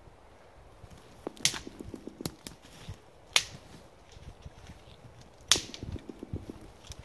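Dry dead branches being snapped by hand for firewood: several sharp cracks, the loudest about a second and a half, three and a half and five and a half seconds in, with twigs rustling and crunching between them.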